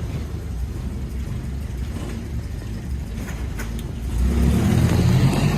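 1937 Morris Eight's 918 cc side-valve four-cylinder engine running as the car drives along, growing louder about four seconds in as it picks up speed.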